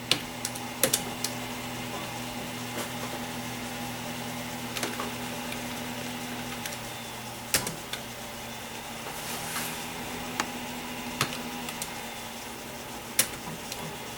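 Steady hum of a running desktop PC with a few sharp single clicks scattered through it, typical of keyboard keys being pressed to work through Clonezilla's menus.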